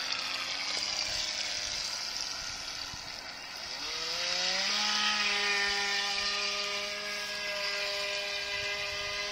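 Feilun FT009 RC speedboat's brushed electric motor whining as the boat runs across the water. About four seconds in, the pitch rises as it speeds up, then holds a steady high whine.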